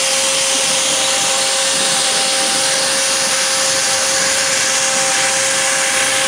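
Waterjet cutter's high-pressure water stream cutting through foam: a loud, steady hiss with a constant whine underneath.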